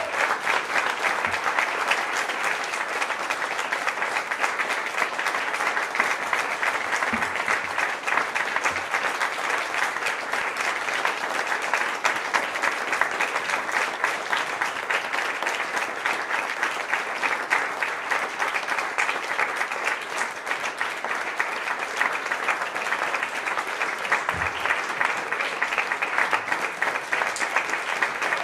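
Crowd applauding, a dense, steady clapping that keeps an even level throughout.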